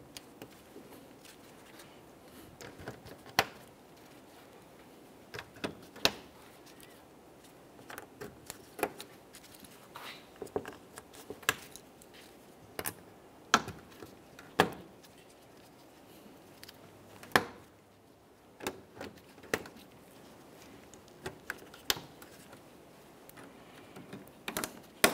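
Plastic push-pin retainers being pressed into a car's plastic radiator cover: a long, irregular series of sharp clicks and snaps, roughly one every second or so, with softer plastic handling between them.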